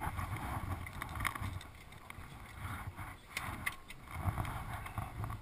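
Car cabin noise on the move: a steady low road rumble with scattered light clicks and rattles.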